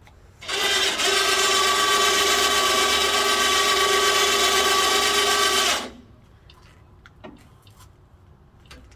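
Electric winch on a trailer-mounted crane boom running under remote control for about five seconds at a steady whine, hoisting its load, then stopping abruptly. A few faint clicks follow.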